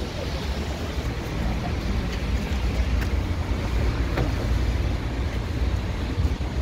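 Wind buffeting the microphone: a steady low rumble with a hiss over it and a few faint clicks.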